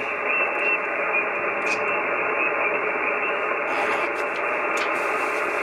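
Amateur radio transceiver's speaker giving a steady hiss of 40-metre band noise, its top cut off sharply by the single-sideband receive filter, as the receiver sits open for replies after a call.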